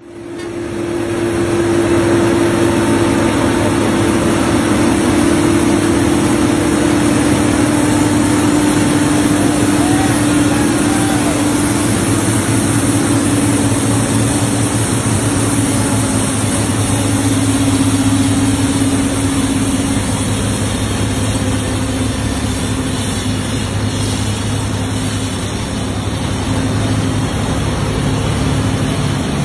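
Diesel engines of heavy-haul tractor trucks running under load as they move a giant mining dump truck on a multi-axle trailer. It is a steady, loud drone whose note slowly sinks in pitch.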